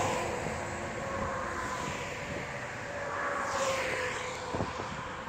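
Steady highway traffic noise: a continuous hum of tyres and engines from vehicles passing on the nearby road bridge.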